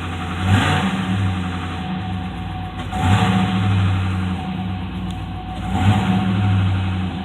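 2006 Chevrolet Trailblazer SS's 6.0-litre LS2 V8 idling, blipped briefly three times, with the knock the owner takes for piston slap.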